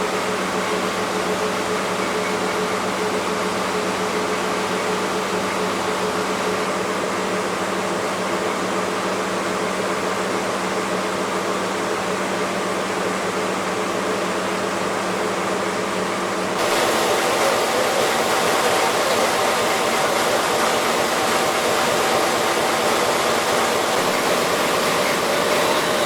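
Steady running noise of a passenger coach in motion, heard from inside, with a low steady hum under it. About two-thirds of the way through, the noise abruptly gets louder and hissier and the hum drops away.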